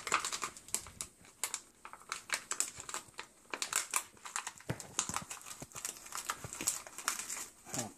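A thin clear plastic cup crinkling and crackling in the hands, with rustling plant roots, as the roots are worked out through holes cut in the cup. A steady run of quick, irregular crackles.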